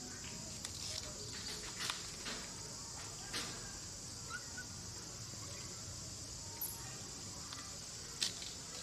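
Steady high-pitched drone of an insect chorus, with a few sharp clicks scattered through it; the loudest click comes near the end.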